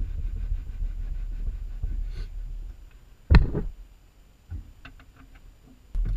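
Low rumbling handling noise, then a single sharp knock a little past halfway, followed by a few light clicks and another knock near the end.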